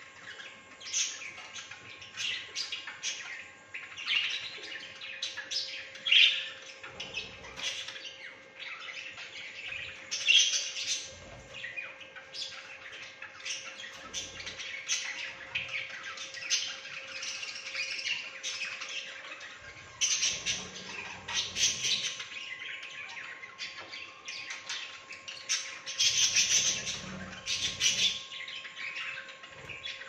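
A flock of budgerigars chattering and chirping without pause, with louder squawks standing out now and then.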